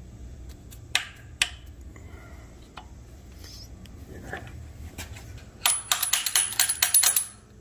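A couple of light metal clinks as the timing sprocket is handled on the Hemi's crank snout. Near the end, a ratchet clicks rapidly for about a second and a half as it turns the crankshaft.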